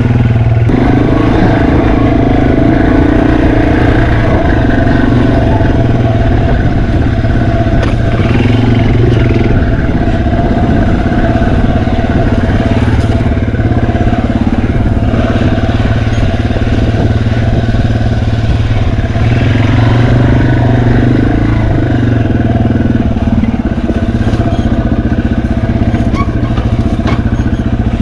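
Yamaha TW200's 196 cc air-cooled single-cylinder four-stroke engine running steadily as the bike is ridden off-road, its note rising and falling a little with the throttle, with a few light clicks and rattles on top.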